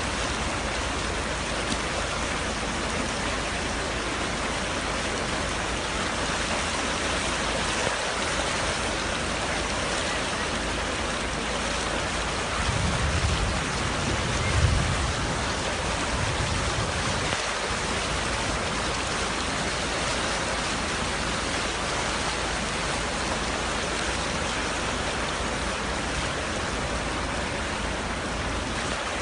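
Muddy flash-flood torrent rushing through a street: a steady, even noise of fast-moving water. A brief low rumble comes a little before the middle and is the loudest moment.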